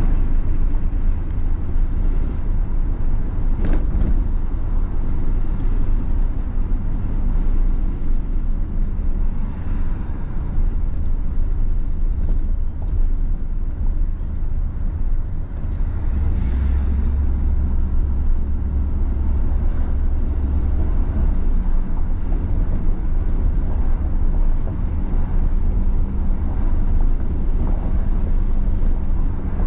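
Steady low rumble of a moving road vehicle, heavier for a few seconds near the middle, with a couple of brief sharp knocks.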